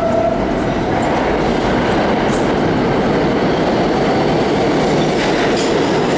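New York City subway train running through the station: a loud, steady noise of wheels on the rails.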